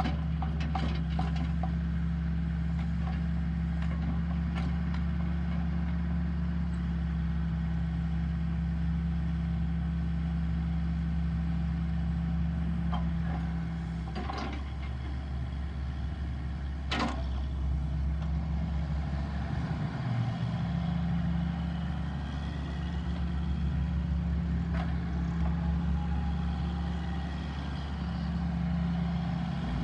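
Bobcat X331 mini excavator's diesel engine running steadily while the boom, bucket and swing are worked. The engine note shifts about halfway through, and there are two sharp metallic clanks around the middle.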